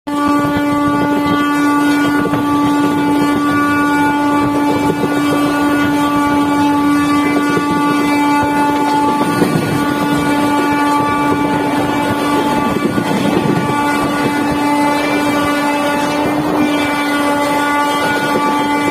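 A WAP-5 electric locomotive's horn held as one long, steady note over the rumble of the moving train.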